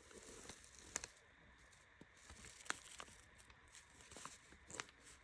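Faint handling of a sheet of paper with a pen, giving soft rustles and a few scattered light ticks.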